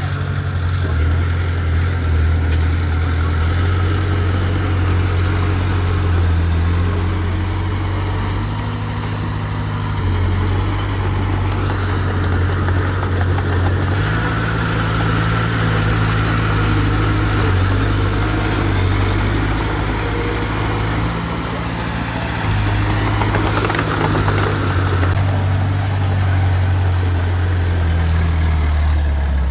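Heavy diesel engine of earthmoving machinery running steadily, its low drone stepping up and down in pitch several times as the load changes.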